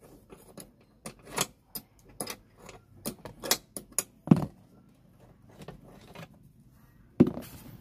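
Irregular metallic clicks and clinks of a hand wrench working a car seat's mounting bolt at the seat rail, with a dull knock about four seconds in and another near the end.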